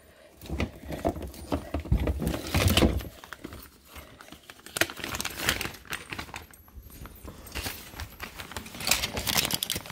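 Hands rummaging through a clear plastic storage bin of bottles and containers: irregular knocks, clatters and rattles of plastic being shifted about.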